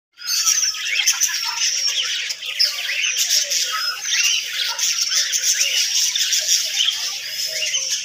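A flock of small fancy parrots in an aviary chattering, with many short chirps and squawks overlapping without a break.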